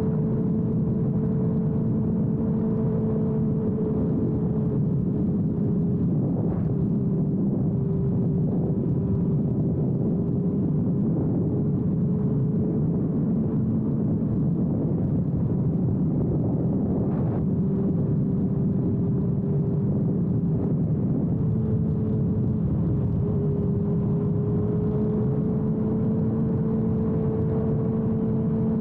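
Suzuki GSX-R1000R's inline-four engine through a Yoshimura exhaust, cruising at a steady note with wind rush over the camera. The engine pitch sags a little a few seconds in and climbs back near the end, with two brief clicks along the way.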